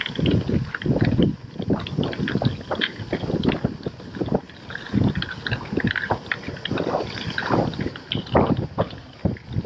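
Wind buffeting a GoPro Hero 7's microphone in irregular gusts while riding, over the crunch and crackle of a gravel bike's tyres rolling on a loose gravel path.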